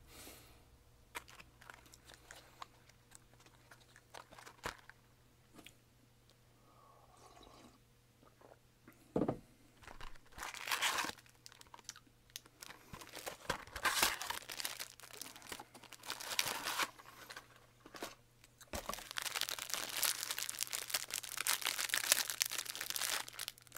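Plastic wrapper of an individually packed butter cookie crinkling and tearing as it is handled and opened, in scattered rustles and bursts at first, then continuous crinkling over the last few seconds.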